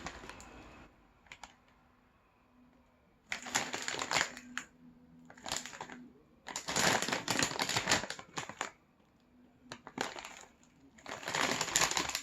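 Crunchy potato chips being bitten and chewed close to the microphone: several bursts of crisp crackling crunches with short pauses between.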